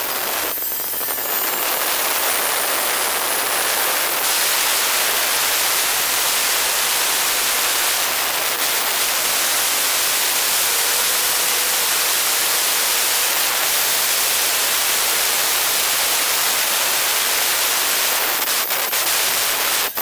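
Handheld electric stone cutter running steadily as it cuts along the edge of a stone slab, a loud even grinding hiss that stops suddenly at the end.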